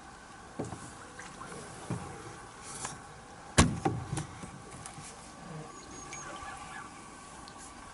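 A few sharp knocks and clicks, the loudest about three and a half seconds in, over a faint steady outdoor background, with a couple of small high chirps a little after six seconds.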